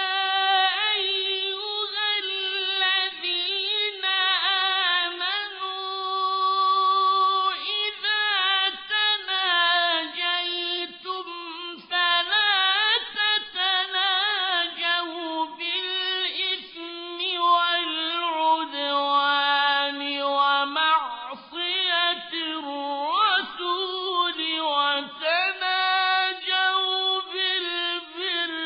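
Unaccompanied male voice reciting the Quran in melodic mujawwad style (tajwid), drawing the words out into long, ornamented held notes with only brief breaths between phrases.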